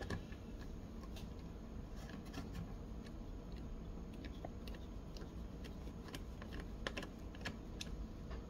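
Scattered light clicks and taps of fingers fitting a small screw by hand into the metal amplifier back plate of a Paradigm PDR-8 subwoofer.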